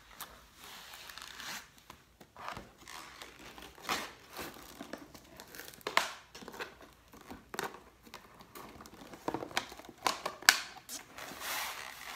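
Crinkling and rustling from hands handling a translucent plastic file box, with several sharp clicks and taps, the loudest near the end.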